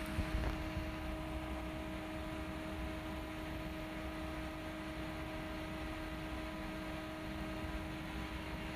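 Steady background hum with a faint hiss, holding one level throughout; a couple of light knocks just after the start.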